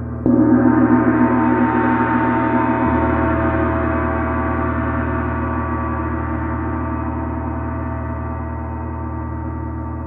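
A 30-inch Paiste Symphonic gong is struck once about a quarter second in, over the ring of the previous stroke. A dense wash of overtones builds higher over the first two seconds, then slowly dies away.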